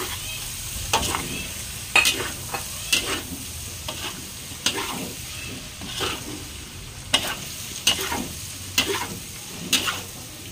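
Metal spatula scraping and tossing diced pork and mushrooms in a stainless steel wok, about one scrape a second, over the steady sizzle of the food frying in oil.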